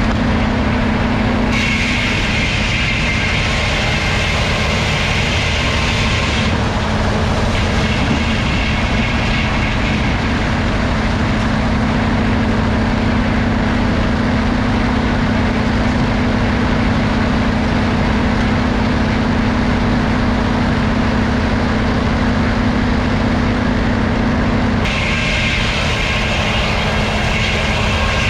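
Sawmill machinery running steadily with a low hum. A harsher, higher-pitched sound joins it for about five seconds near the start and again for a few seconds near the end, as when wood is being cut or fed through.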